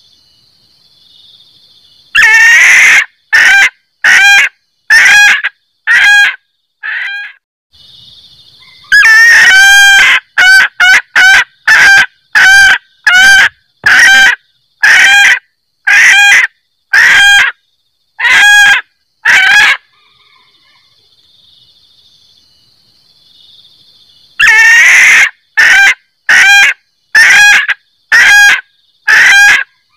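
F1 junglefowl hen cackling ('kekek'), the lure call used to draw in males: three loud bouts, each opening with a longer note and followed by a run of short, separate notes at about one to two a second.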